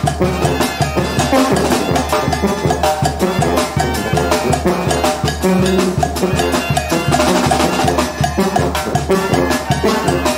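Small brass band playing live: trumpets carry the tune over a bass drum with a cymbal mounted on top and a snare drum keeping a steady beat.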